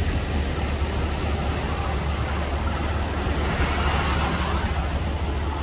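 Ski boat's outboard motor running as the boat pushes out through the surf, mixed with the steady wash of breaking waves.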